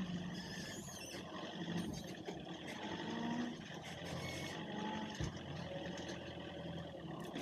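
Forklift working at a truck in a loading yard: a steady machine hum with faint whines that rise and fall, light clicks and a soft knock about five seconds in.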